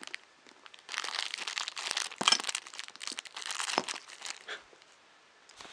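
Packaging crinkling and rustling as it is handled, with a few sharp clicks, starting about a second in and dying away after about four and a half seconds.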